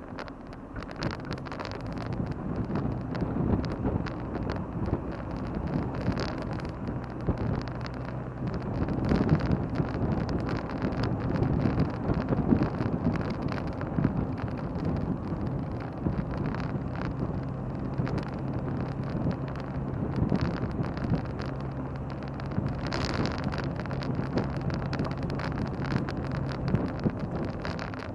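A car being driven, its engine running steadily under continuous road and wind noise.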